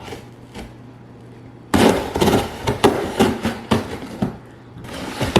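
Cardboard shipping box being torn open by hand: loud crackling and ripping of cardboard and packing tape, starting about two seconds in, with a short pause before a second bout near the end.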